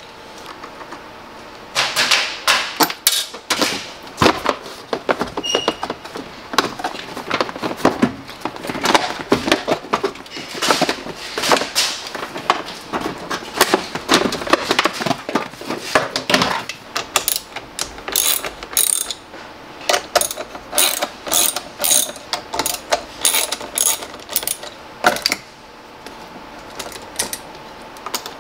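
Hand ratchet wrench clicking in quick runs with short pauses between them, as bolts are turned out.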